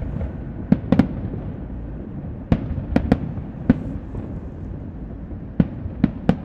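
Fireworks display: a run of about nine sharp bangs at uneven intervals, some in quick pairs, over a steady low rumble of further bursts.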